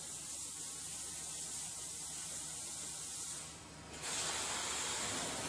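Steady hissing from a plastic vacuum forming machine. It dips briefly about three and a half seconds in, then comes back louder and brighter.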